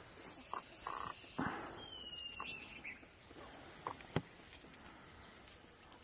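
Faint wild birdsong: a thin whistled note, then a second one that falls in pitch, both in the first few seconds. A few soft clicks and taps go with them, the sharpest about four seconds in.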